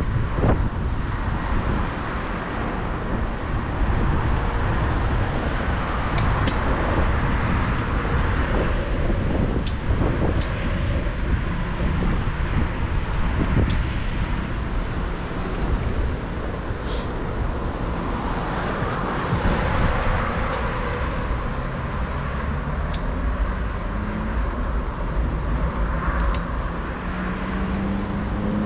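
Road traffic noise heard from a moving bicycle: a steady rumble of cars and low wind noise, with a vehicle engine rising in pitch near the end.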